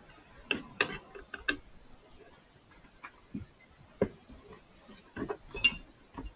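Irregular sharp clicks and knocks of a dimmer switch and its parts being handled and pushed into place by hand during fitting.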